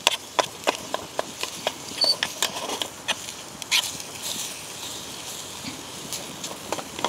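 A metal spatula clicking and scraping in a frying pan as sauerkraut and corned beef sizzle, with the wood fire crackling in the small stove beneath. Sharp irregular clicks run throughout, with a hissing stretch in the middle.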